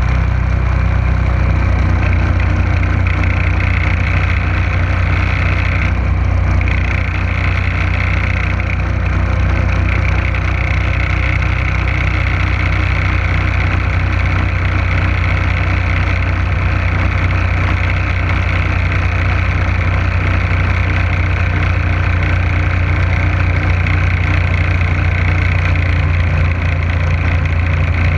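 Motorboat engine running steadily under way, with a steady low hum, over the rush of water from the wake.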